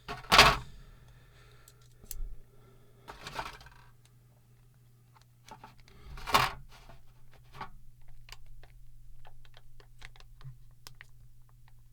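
A plastic ink cartridge is handled and pried at by hand. There are three short, harsh scraping rattles, the loudest right at the start, then a run of light plastic clicks and ticks.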